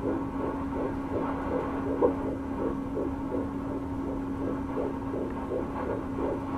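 Handheld fetal Doppler picking up an unborn baby's heartbeat: fast, even pulses about three a second, over a steady hum. The rate is 165 beats a minute, which the nurse calls very good.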